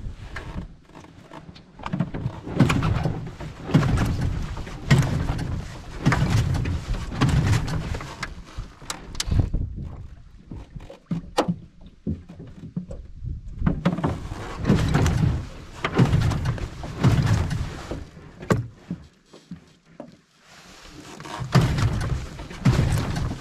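Small tiller outboard motor being pull-started over and over without catching: runs of starter-cord pulls about one a second, in three spells with short pauses between. The motor is hard to start, which the owner puts down to a long rough gravel-road trip.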